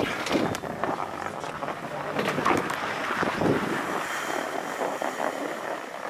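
Skis sliding and scraping over packed, tracked snow, with wind noise on the microphone.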